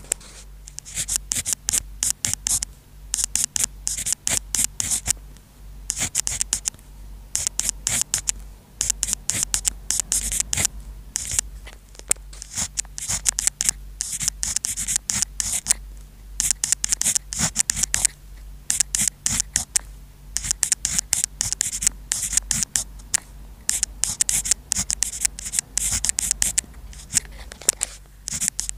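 Pen writing on paper: quick, high-pitched scratchy strokes in bursts with short pauses between them, over a faint steady low hum.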